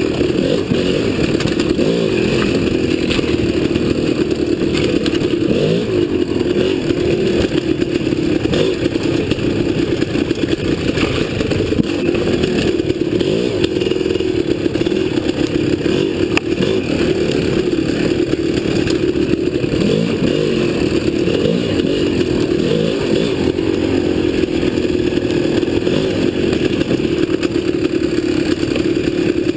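Dirt bike engine running and revving up and down as the bike climbs a rocky trail, with scattered knocks and clatter from the bike over the rocks.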